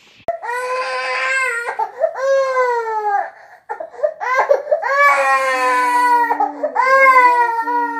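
Young baby crying in long, high-pitched wails, about four of them, each falling in pitch at its end, with short catches of breath between.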